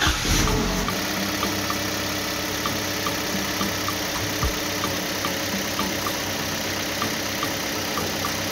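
Vehicle engine catching and then idling steadily, with a light tick about twice a second.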